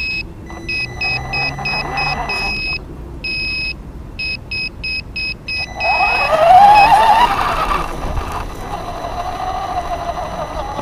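An RC car's electronic horn beeping in a string of short and longer high beeps. About six seconds in, the Traxxas Stampede 4x4's electric motor whines up loudly as the car pulls away, then carries on at a steadier whine.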